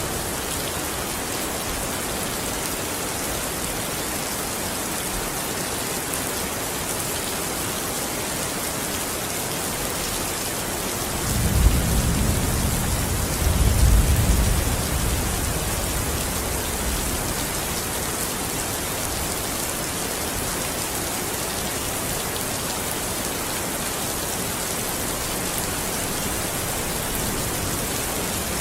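Steady, even rain hiss, with a low roll of thunder a little before the middle that swells twice and dies away over a few seconds.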